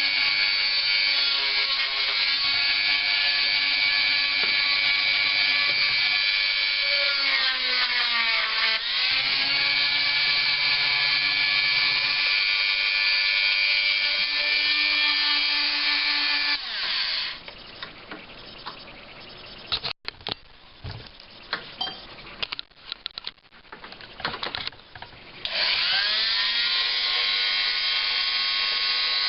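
Small high-speed rotary grinding tool running with a steady whine while sanding the plastic of a laptop case; its pitch sags once when it is pressed into the work. About two-thirds through it winds down, leaving a few light clicks and knocks of handling, then it spins up again near the end.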